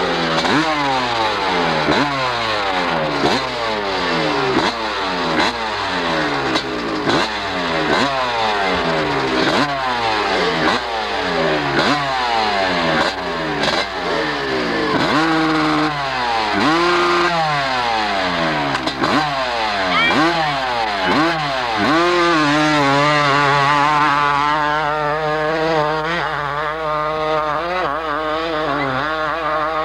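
Kawasaki KX two-stroke dirt bike revving in quick repeated throttle blips, the pitch jumping up and falling back again and again. At about 22 seconds in it goes to sustained high revs with a wavering note as the bike runs up the hill.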